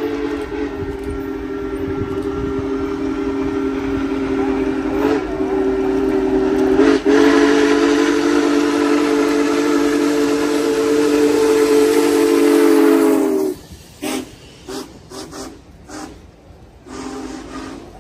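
Union Pacific Big Boy 4014 steam locomotive's chime whistle blowing one long blast, growing louder as it approaches, until it cuts off suddenly about 13 seconds in. A few short blasts follow near the end as the locomotive goes by.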